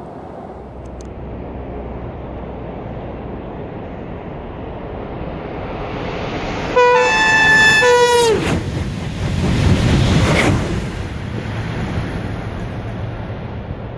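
High-speed train approaching at speed and sounding its horn for about a second and a half, the horn's pitch dropping as it passes. The train then rushes by, loudest around ten seconds in, and fades away.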